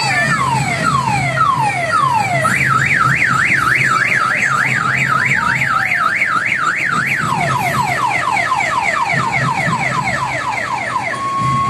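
Electronic siren on a decorated tourist road train cycling through its tones. It starts with falling sweeps about two a second, switches to a fast warble for about five seconds, then gives quicker falling sweeps about five a second that stop just before the end. A low steady hum runs underneath.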